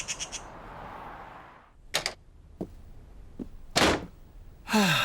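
Cartoon sound effects: a few short knocks and thuds, the loudest about four seconds in, then a falling musical tone starting just before the end.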